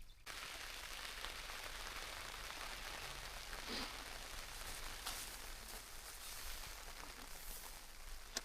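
Steady rain falling, beginning abruptly just after the start, with a few louder individual drops hitting a surface now and then.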